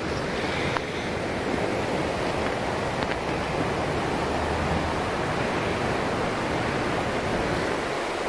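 Steady, distant rush of the Logan River, a mountain stream, heard faintly from a trail high above it.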